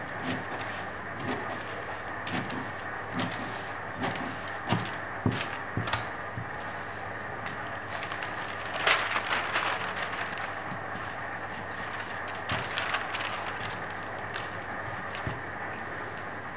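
Large scissors cutting through cloth in scattered snips and clicks over a steady background hiss, with a louder rustle of the cloth being lifted and shifted about nine seconds in.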